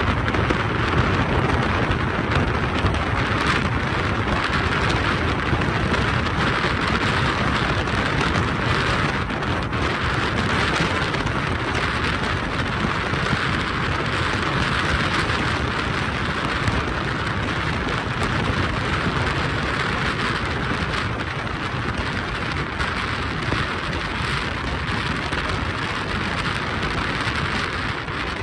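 Steady rushing road and wind noise from a vehicle driving along a paved road at speed, even throughout.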